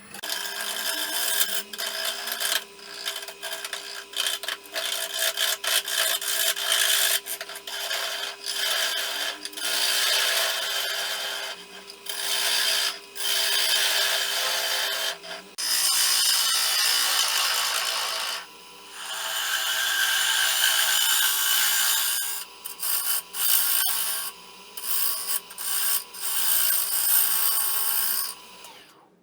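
Wood lathe running with a steady faint hum while a tool is worked against the spinning itin wood in repeated passes, each pass a loud rasping hiss that starts and stops.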